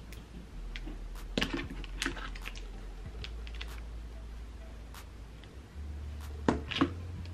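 Scattered soft clicks and crackles of a Denman styling brush being worked through coily hair, with louder clicks about a second and a half in and twice near the end.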